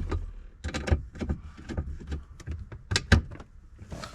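Plastic interior trim panel being pressed and worked into place on the dash: a quick series of clicks and knocks as its push clips seat, with two sharp snaps a little after three seconds in.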